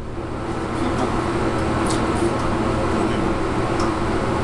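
Steady background hum and hiss, with a couple of faint light clicks.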